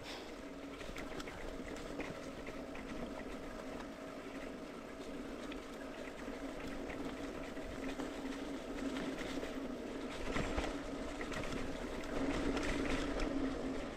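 Mountain bike rolling along a dirt single-track trail: a steady rushing noise from the tyres and moving air, with scattered rattles and knocks from the bike. It gets louder in the last couple of seconds.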